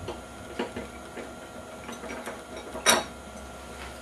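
Copper bus bar clinking against the machine screws as it is set down over them onto the controller's power section: a handful of light metallic clicks, the loudest about three seconds in.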